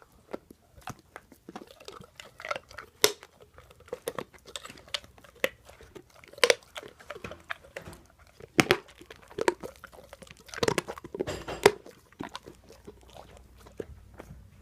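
English mastiff chewing and crushing a bone: irregular wet chewing broken by loud sharp cracks as the bone splinters, the loudest a few seconds apart.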